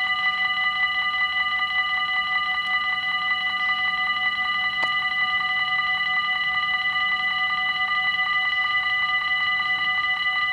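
Electric warning bells of a Dutch automatic half-barrier level crossing ringing continuously with rapid, even strokes, signalling that a train is approaching and the crossing is closed.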